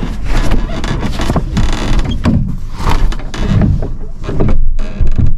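Canvas of a kei camper's pop-up roof rustling and crumpling as the roof is pushed down and folded shut by hand, with repeated knocks and bumps from the roof panel and frame.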